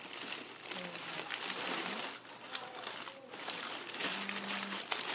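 Crinkly plastic wrapping and shredded plastic Easter grass rustling and crinkling as they are handled and pulled apart by hand.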